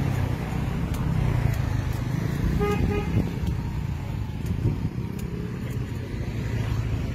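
A vehicle horn beeps twice in quick succession about three seconds in, over a steady low rumble of road traffic.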